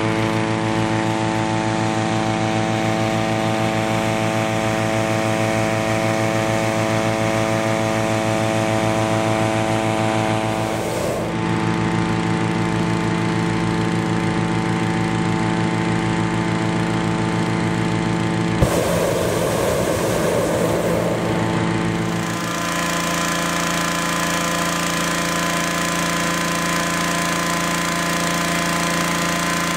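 Petrol-engined balloon inflator fans running steadily at full speed, blowing cold air into hot-air balloon envelopes. The engine note changes slightly about 11 and 22 seconds in, and a rushing noise joins for a few seconds around 19 seconds in.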